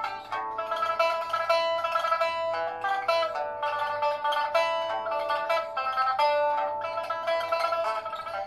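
Pipa (Chinese pear-shaped lute) played solo: a steady stream of plucked notes, some of them held.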